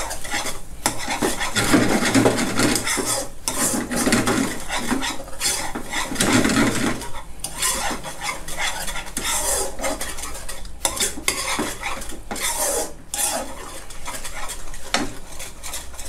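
Metal spoon stirring and scraping a thick salted-egg-yolk sauce in a stone-coated nonstick frying pan, with quick, continuous strokes against the pan to blend in the seasonings.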